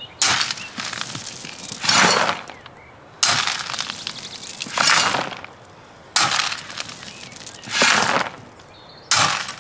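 Shovel scooping gravel from a pile and tipping it into a wheelbarrow, about one load every three seconds. Each load is a sharp scraping crunch as the blade goes in, then a rattling pour of stones into the barrow a second and a half later.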